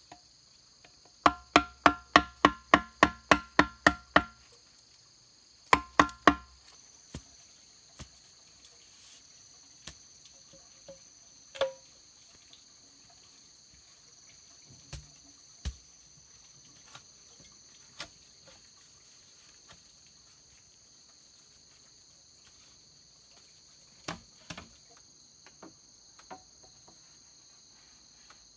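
Wood knocking on a hollow green bamboo post, about a dozen quick strikes at roughly four a second, each ringing with a hollow pitched tone, then three more strikes; a few scattered single knocks follow. A steady high insect chorus runs underneath.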